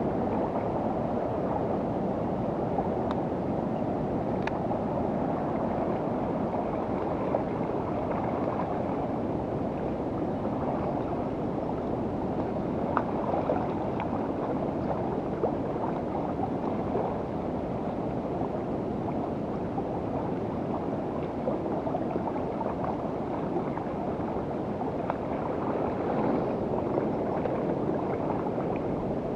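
Steady gurgling wash of lake water lapping at the shore, mixed with wind on the microphone, with a few faint ticks.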